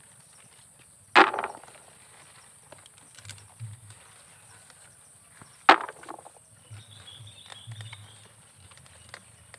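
Ripe robusta coffee cherries being plucked by hand from the branch: two sharp snapping rustles of stalks and leaves, about a second in and again just past halfway, with lighter crackling of leaves between, over a steady high drone.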